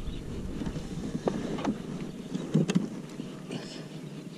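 Wind buffeting the microphone on a kayak over open water, with a few light clicks and knocks from the fishing tackle as the rod and baitcasting reel are worked.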